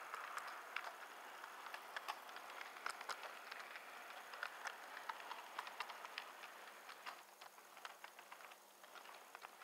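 Light, irregular clicking and ticking over a steady faint hiss, from a model train rolling along its track.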